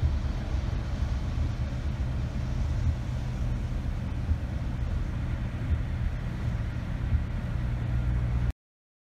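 Steady low rumble of a vehicle driving at motorway speed, heard from inside the cab: engine drone with tyre noise on a wet road. It cuts off suddenly near the end.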